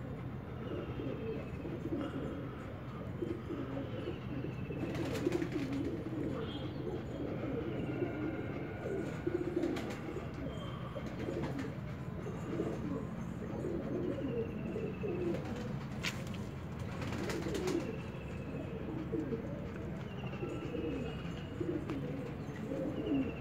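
Several domestic pigeons cooing over and over, their low rolling coos overlapping throughout. Short, high falling chirps and a few brief sharp noises sound among them.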